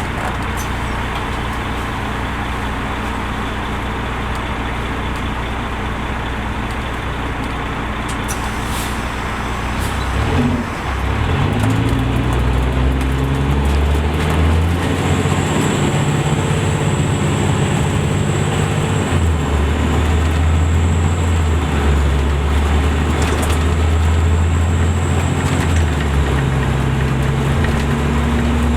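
The Caterpillar C13 diesel engine of a 2005 MCI D4500CL commuter coach running steadily, then about ten seconds in pulling away: the engine note rises, gets louder and steps up and down in pitch as the Allison automatic transmission shifts. A faint high whine runs through the middle of the pull.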